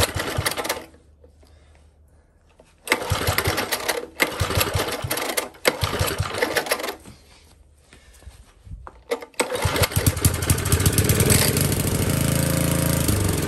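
Old Tecumseh four-stroke engine being pull-started on its recoil cord: it fires in ragged bursts that die away twice, then catches about nine seconds in and runs steadily for a few seconds. It runs starved of fuel, which the owner puts down to a carburettor needing cleaning and its main jet opening up.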